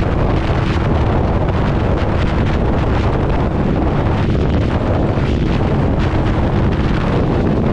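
Heavy wind noise buffeting the microphone of a Harley-Davidson V-Rod motorcycle at steady road speed in the rain, with the bike's engine and tyres on the wet road running beneath it.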